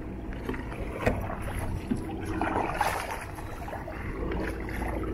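Kayak paddles dipping and splashing in river water, with water dripping and sloshing around the kayak and a sharp knock about a second in.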